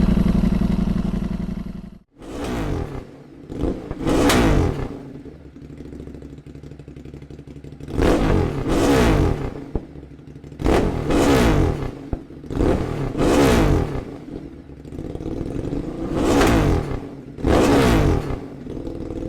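Ducati Streetfighter V4S's 1103 cc V4 engine through SC Project 2-1-2 titanium exhausts: a held high-revving note that cuts off about two seconds in, then a series of sharp throttle blips, each rising and falling, with the engine idling between them.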